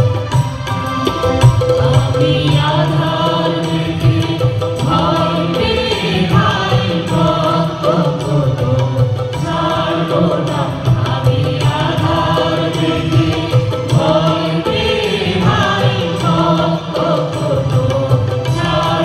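A mixed group of men and women singing a Bengali song together into microphones, with a drum beat underneath.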